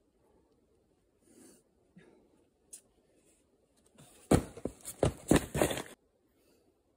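A climber coming off a boulder and landing on crash pads: a quick cluster of loud thumps and scuffs lasting under two seconds, starting about four seconds in and cutting off abruptly. Before it, only a few faint scrapes and breaths.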